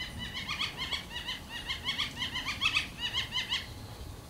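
Young flicker calling from inside a wood pile: a rapid run of short, repeated pitched notes, about seven a second, that stops near the end.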